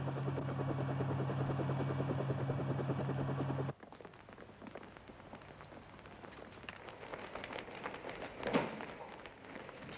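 Helicopter rotor and engine noise heard from inside the cabin, a steady drone with fast rhythmic chopping, cutting off suddenly about four seconds in. Then a much quieter stretch of scattered footsteps and light knocks, with one louder sharp knock near the end.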